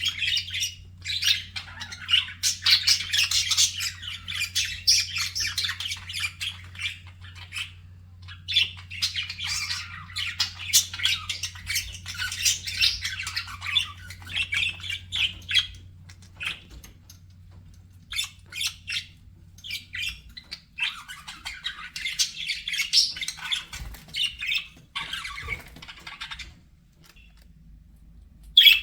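Budgerigars chattering and warbling: rapid chirps and squawks in bouts with brief thinner pauses.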